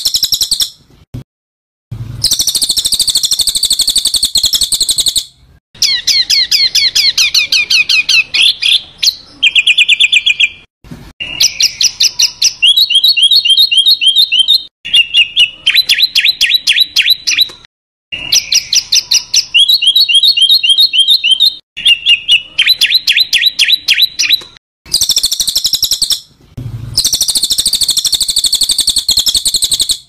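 Harsh songbird calls from a bird-training (masteran) recording: high-pitched buzzy phrases alternating with fast rattling trills, in bursts of a few seconds separated by short gaps, with the same phrases coming back again and again.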